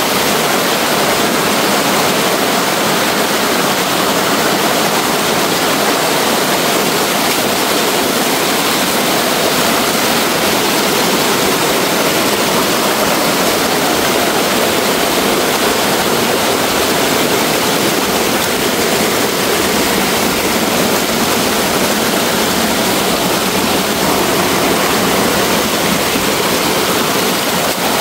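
A loud, steady rush of water with no breaks or strokes.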